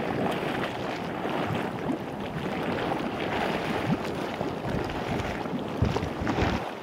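Geothermal mud pots and mud volcanoes bubbling and gurgling: an irregular run of small pops and blurps over a steady rushing noise of venting gas and steam.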